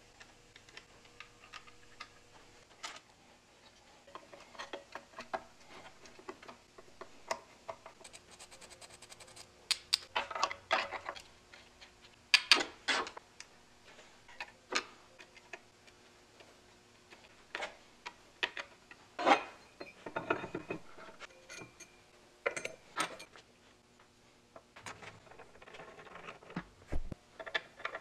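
Small metal engine parts and hand tools clicking, clinking and scraping at irregular intervals as an old Wells engine is put back together on a bench.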